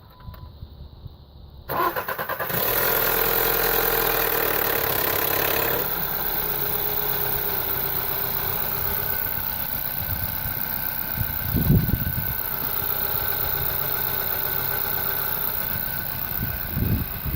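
Audi A1 TFSI petrol engine cranked by the starter, catching about two seconds in. It runs at a raised cold-start idle, then settles to a lower steady idle at about six seconds. This engine has a history of timing-chain rattle on cold start, blamed on the hydraulic chain tensioner.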